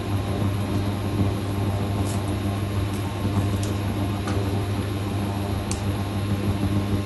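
Steady electrical hum of a running kitchen appliance, a low drone with overtones over a noisy background, with a few faint clicks.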